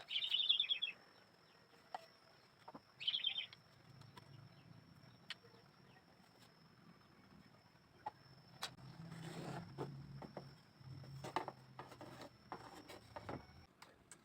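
A small bird chirps: two short, rapid trills about three seconds apart, over scattered faint clicks and taps.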